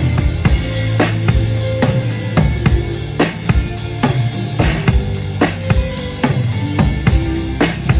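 Live band playing an instrumental groove: a drum kit with kick, snare and cymbals keeping a steady beat over a bass line, with other held notes above.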